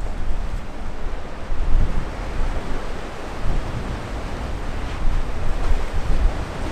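Wind buffeting the microphone in uneven gusts, over a steady wash of sea waves.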